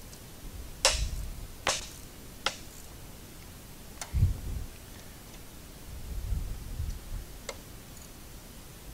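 A wrench tightening the frame bolts on a hydraulic floor jack: a handful of separate sharp metallic clicks, most of them in the first few seconds, with a few dull low knocks near the middle.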